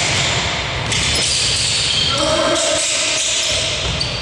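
Basketball game sounds on a hard court: the ball bouncing, a few thuds, and players' voices calling out.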